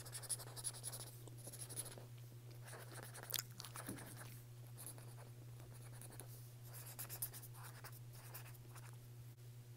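Felt-tip marker scribbling on paper, colouring in with a run of quick, faint, scratchy back-and-forth strokes.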